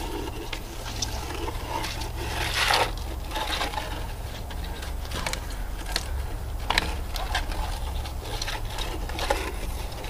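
Metal detector's search coil scraping and tapping over a rough-sawn cedar cant, with a louder scrape about two and a half seconds in, over a steady low hum.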